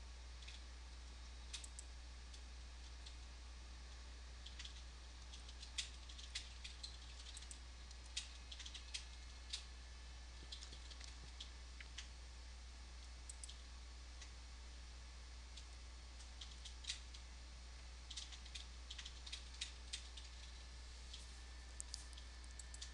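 Faint, irregular clicks and taps of a computer mouse and keyboard, some in quick little clusters, over a steady low hum.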